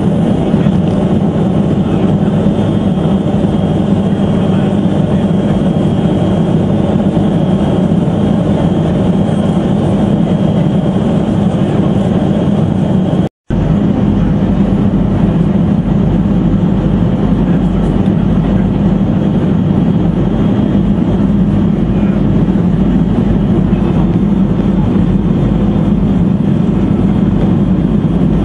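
Steady in-flight cabin noise of a Boeing 707: engine and airflow noise with a strong low hum and a faint high whine. It cuts out for a split second about halfway through.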